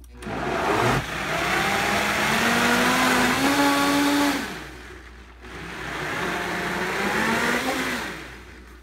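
Vitamix blender motor running under load in two bursts, puréeing a thick chickpea mixture. The first run climbs in speed for about four seconds, then winds down. After a short pause, a second run rises and falls again.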